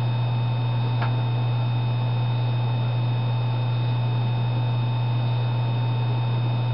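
Steady low electrical hum with a few faint, steady high-pitched whine tones above it, and a single faint click about a second in.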